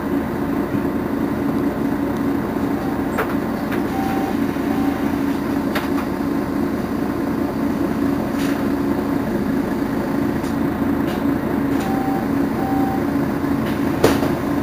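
Mercedes-Benz Citaro facelift city bus standing with its engine idling steadily. A few short electronic beeps sound in two groups, and there are scattered clicks, with a sharper knock near the end.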